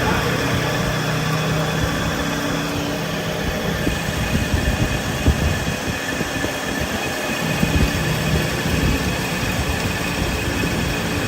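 A machine running steadily with a low rumble and a faint steady hum; it starts abruptly as the shot begins.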